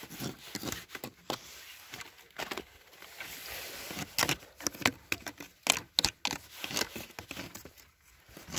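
Irregular sharp cracks and snaps with rustling, as branches and hay are handled.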